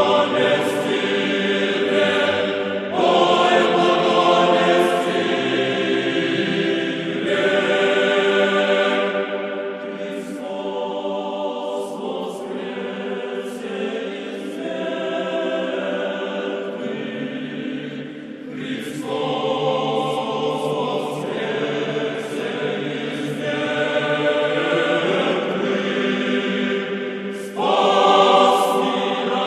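Church choir singing Orthodox liturgical chant unaccompanied, several voices in harmony, in sustained phrases that change every few seconds.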